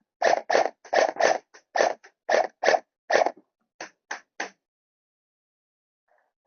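Quick crunching footsteps on dry ground, about a dozen steps at roughly three a second, which stop a little over four seconds in.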